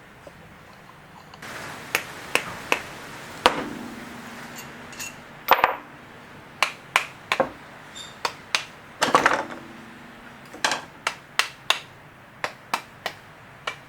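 Irregular sharp metallic clinks and knocks, some ringing briefly, from engine parts and hand tools being handled and set down during piston, connecting rod and bearing assembly.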